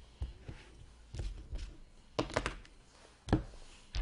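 A trading card being slid into a rigid plastic top loader and set down on a table: a string of small clicks and taps, the loudest about three and a half seconds in.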